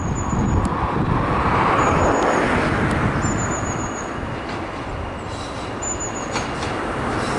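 Diesel locomotive approaching along the line, its engine giving a steady rumble that swells about two seconds in and eases off later.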